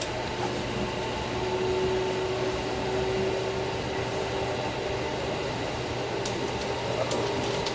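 Running noise heard inside a moving electric train car: an even rumble with a steady humming tone over it, and a few faint clicks near the end.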